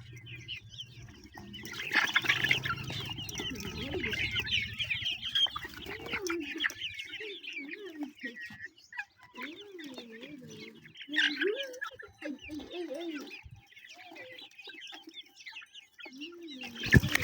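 Flock of chickens clucking and chirping, many overlapping short calls, with a low hum in the first few seconds. A sharp knock near the end is the loudest single sound.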